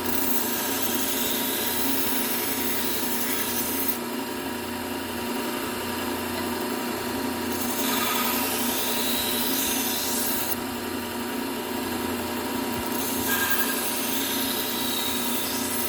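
Low-speed belt sander running steadily with a fine Trizact A30 belt while a steel kitchen knife edge is drawn across it in three passes of a few seconds each, each pass a scraping hiss over the motor's hum, refining the edge.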